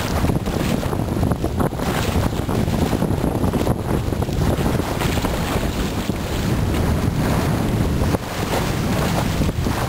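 Wind buffeting the microphone over the rush and splash of water along a small sailboat's hull as it sails briskly. The sound is continuous, low and gusty, with no engine heard.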